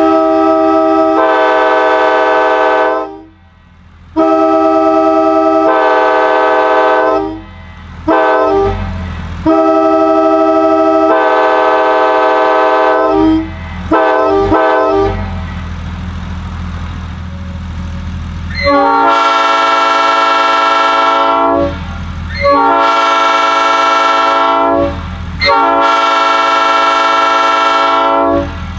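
Multi-chime locomotive air horn blown in a series of long and short blasts, then three long blasts near the end, each a steady chord that cuts off sharply, over a steady low hum.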